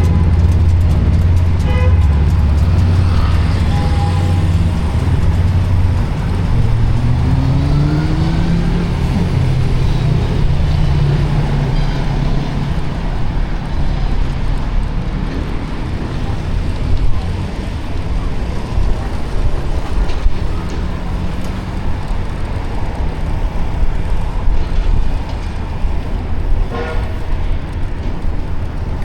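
Busy city road traffic, a steady rumble of passing motor vehicles. About a third of the way in, one engine rises in pitch as it accelerates. There are short horn toots near the start and again near the end.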